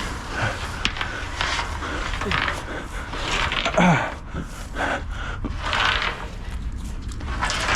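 A man breathing hard and panting with exertion while hauling a long metal pole out of a canal by hand, with a strained grunt about four seconds in.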